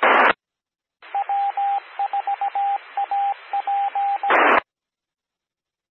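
Two-metre amateur radio repeater sending its Morse code identification: a single steady tone keyed in dots and dashes over a hissing carrier. A short burst of squelch noise comes just before it and another just after it.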